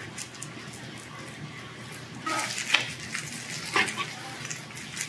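Pork belly sizzling on a tabletop grill plate, with a couple of sharp clicks of chopsticks against the plate in the middle.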